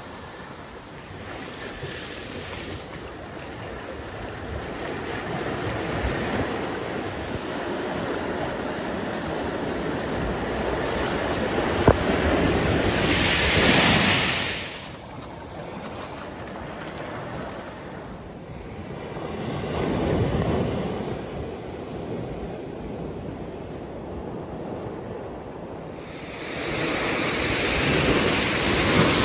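Ocean surf breaking and washing up a pebble beach, a steady rush that swells into louder surges about halfway through, again a little later and once more near the end.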